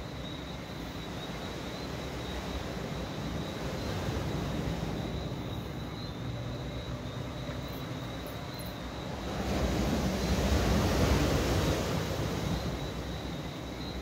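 Waves washing onto a beach at night: a steady rush that swells twice, gently about four seconds in and more strongly for a few seconds past the middle. Under it runs a steady high trill of night insects.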